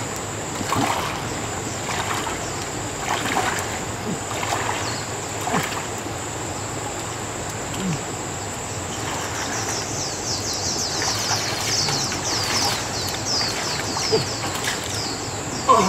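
Splashing in shallow muddy water as a person wades and grabs fish by hand, in irregular bursts. A steady thin high tone runs underneath, and from about the middle a rapid series of high, falling chirps joins in.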